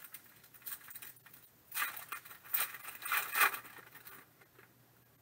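Foil trading-card pack wrapper of 2021 Panini Prizm football being crinkled and torn open by hand, in a string of short crackly bursts, loudest between about two and three and a half seconds in.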